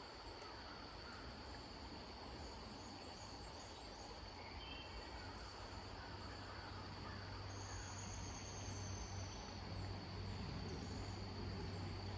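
Insects trilling steadily on one high pitch over faint outdoor background noise, with a few short bird-like chirps. A low steady hum joins about five seconds in.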